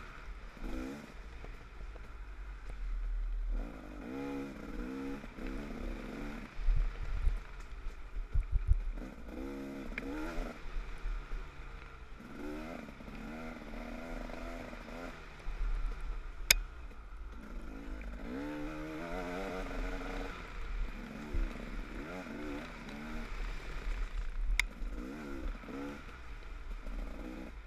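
Off-road dirt bike engine heard from the rider's helmet, revving up and easing off over and over as it is ridden along a rough trail. The bike clatters and knocks over the ground, with a run of heavy knocks about seven to nine seconds in and a couple of sharp clicks later.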